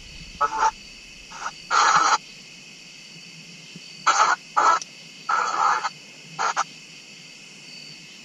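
Spirit box (ghost box) sweeping through radio stations: a steady hiss broken by about seven short, choppy bursts of radio sound and static.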